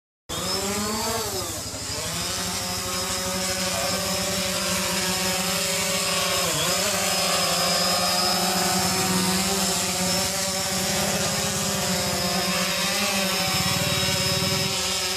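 Quadcopter drone's electric motors and propellers spinning up, the whine rising in pitch over the first second or two, then holding a steady buzzing whine of several tones as it hovers, with a brief dip in pitch about six and a half seconds in.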